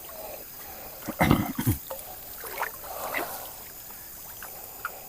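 River water trickling steadily, broken about a second in by a short cluster of loud knocks and splashes, with a few lighter knocks after.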